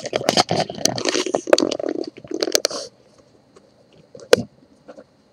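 Handling noise: rustling and scraping with many small clicks for about three seconds, then a pause and a single sharp click.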